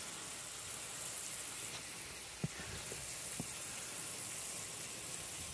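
Water from a garden-hose sprinkler head spraying steadily over a plastic RV roof antenna dome in a leak test: a steady hiss, with two small ticks about a second apart midway through.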